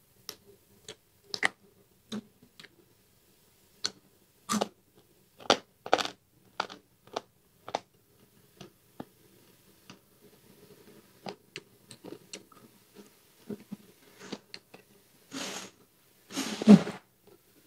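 Close-miked chewing of caramelized braised pork with rice: irregular wet mouth clicks and smacks, a few to a second. Near the end comes a longer, louder breath.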